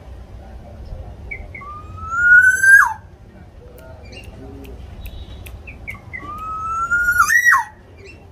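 Black-naped oriole calling twice, about five seconds apart: each call is a couple of short notes, then a long rising whistle that snaps sharply downward at its end.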